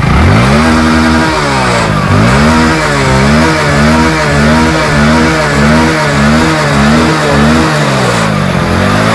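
Hero Splendor Plus BS6's single-cylinder fuel-injected engine catching on the electric starter, then revved again and again with the throttle, its pitch rising and falling about one and a half times a second, with a slower dip near the end. It is running on a freshly cleaned fuel pump filter and injector.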